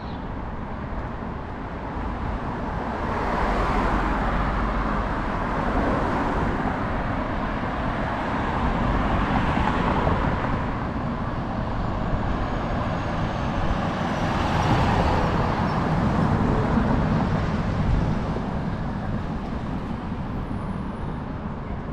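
City street traffic: vehicles passing one after another, each one swelling and then fading into the steady road noise.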